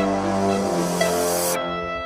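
Electronic background music: sustained synth notes over a low bass, with a rising hiss sweep that cuts off about one and a half seconds in.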